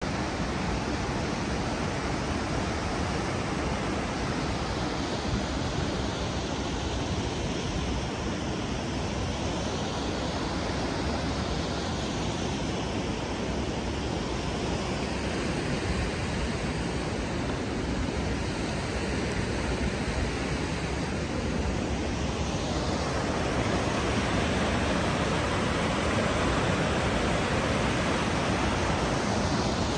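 Mountain stream rushing over rocky cascades and small waterfalls, a steady hiss of white water that gets somewhat louder about three-quarters of the way through.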